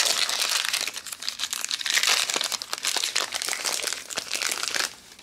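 Foil wrapper of a Magic: The Gathering booster pack crinkling as it is torn open by hand. The crackling stops shortly before the end.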